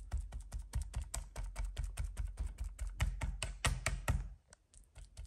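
Large knife blade tapping rapidly down through a thin sheet of minced meat onto a wire grill rack as it is scored in lines, several quick taps a second. The tapping stops about four seconds in, with a few lighter taps near the end.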